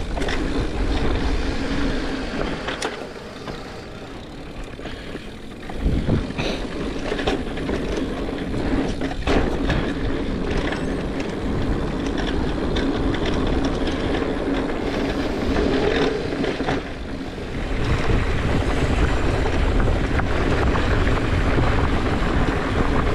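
YT Decoy mountain bike ridden along a dirt trail: steady tyre and riding noise with rattles and knocks, heard through a helmet chin-mounted camera. It drops quieter for a few seconds, then a sharp knock about six seconds in.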